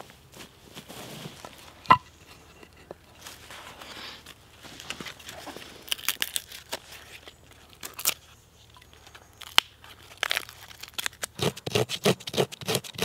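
Birch bark being torn and peeled by hand, crackling and rustling with a few sharp snaps. Near the end a knife blade scrapes the bark into fluffy tinder in quick repeated strokes, about three a second.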